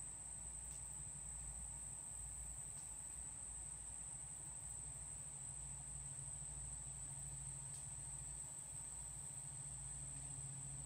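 A steady, high-pitched chorus of insects trilling without a break, over a faint low hum.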